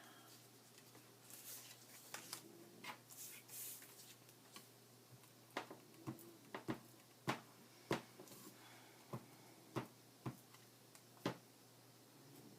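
Hands working paper at a craft table: soft paper rustles in the first few seconds, then a string of about nine sharp light taps or clicks, roughly one a second, as pieces and tools are set down on the table.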